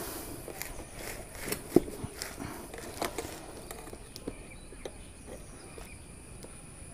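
Scattered clicks and knocks of a bike tyre and inner tube being worked by hand onto a spoked rim, rubber and metal knocking as the bead is pressed in. The sharpest knock comes a little under two seconds in.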